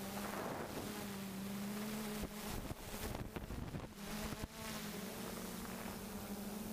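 Multirotor drone's motors and propellers buzzing steadily with a slightly wavering pitch, heard from the camera on board. The buzz breaks up with crackles and short dropouts for a couple of seconds in the middle.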